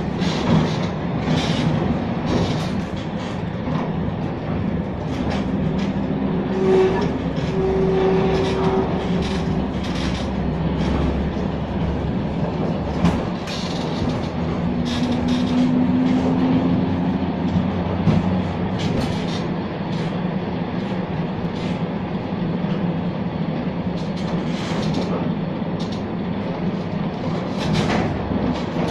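Museum tram M 24 running along its rails, heard from inside the passenger car: a steady rumble of wheels on track with frequent clacks and rattles. A short steady hum comes in about seven seconds in and again about fifteen seconds in.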